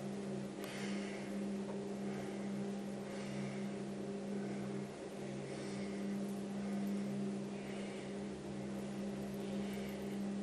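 A steady low mechanical hum, with soft hissing scuffs about every one and a half to two seconds.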